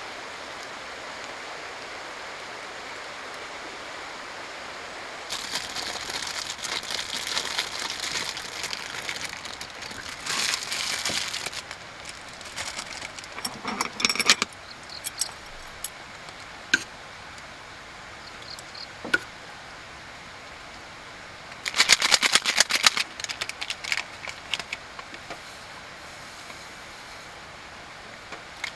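Steady rain hiss, then long bursts of crinkling from a plastic food packet being handled, with scattered small clicks of utensils on the cooking pot between them.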